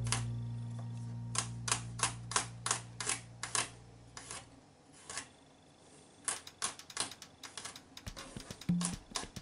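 Kitchen knife chopping garlic cloves on a wooden cutting board: a run of sharp taps about three a second, thinning out midway, then picking up again faster near the end. A low held note of background music fades out over the first few seconds, and the music comes back just before the end.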